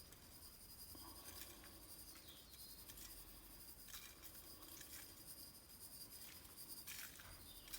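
Near silence, with faint light scratching and pattering of sesame seeds being sprinkled by hand over sauce-coated chicken drumsticks.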